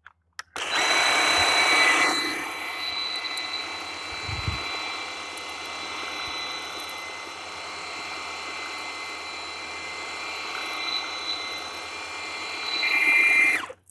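DEWALT DCPW550 cordless power cleaner's battery-powered pump running with a steady whine and hiss of spray as it sprays soap through its soap wand at low pressure. It is louder for the first second or two, settles lower, swells again near the end and then cuts off.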